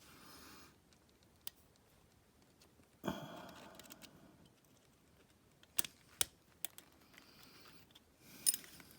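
Sharp metal clicks and light taps from small circlip pliers and a circlip being worked onto a shaft, coming a few at a time, with a knock and a short scrape about three seconds in.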